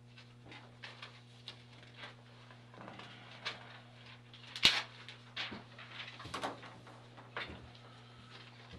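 Scattered handling noises of a person getting up and sitting back down at a table and a sheet of paper being passed across it: short knocks, rubs and squeaks, the loudest a sharp knock about halfway through, over a steady low electrical hum.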